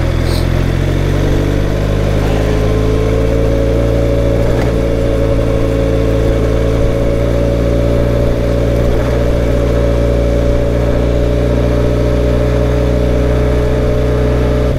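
Benelli TRK 502's parallel-twin engine running under way, its pitch rising slightly over the first few seconds and then holding steady.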